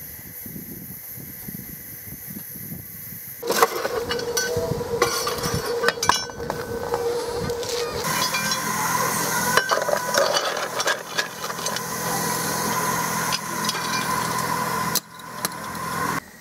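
Coal-fired miniature steam locomotive being readied: steam hissing and metal clinks. From about halfway, water runs through a hose into the locomotive's tender over a steady low hum.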